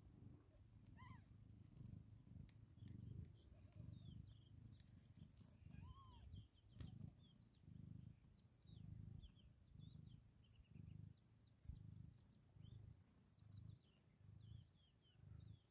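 Mother cat purring while nursing her newborn kittens, a soft pulsing purr that repeats about every three quarters of a second. Faint high chirps and a couple of short squeaks sound over it, one about a second in and another about six seconds in.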